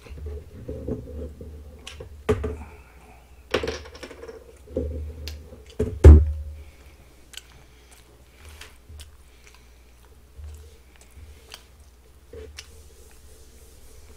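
Scattered clicks, knocks and rustles of plastic food trays and packaging being handled on a wooden table, with one loud thump about six seconds in. The handling thins out to a few light ticks in the second half.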